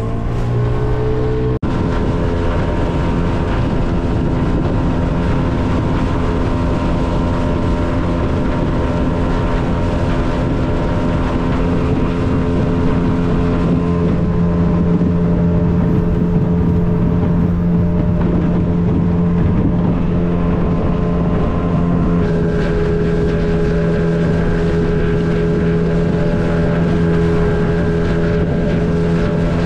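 Outboard motor of a small open boat running under way at a steady speed. The engine note shifts about halfway through and again later.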